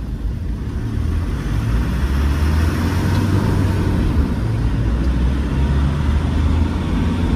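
Land Rover Defender's newly fitted 2.4 Puma four-cylinder turbodiesel running as the vehicle drives: a steady low rumble that grows a little louder over the first two seconds, then holds.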